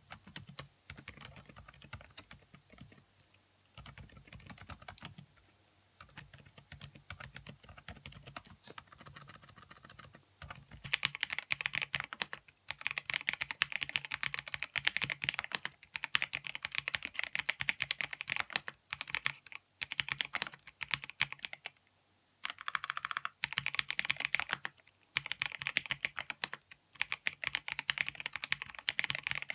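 Continuous typing on a Mistel MD750 Delight 75% mechanical keyboard. The typing is soft for about the first ten seconds, then turns much louder and denser, with brief pauses.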